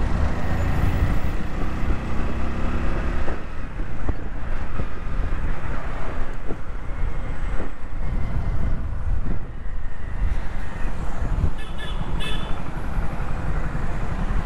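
Wind rushing over the microphone of a moving commuter motorcycle, with the bike's engine and passing road traffic underneath. Two short high beeps come near the end.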